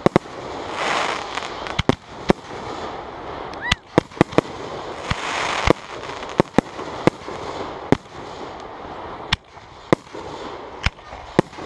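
Aerial fireworks shells bursting in a rapid, irregular series of sharp bangs.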